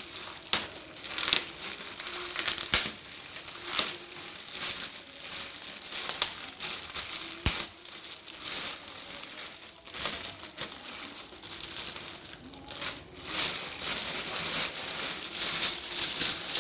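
Packaging being torn open and crumpled by hand: continuous crinkling and tearing with frequent sharp crackles.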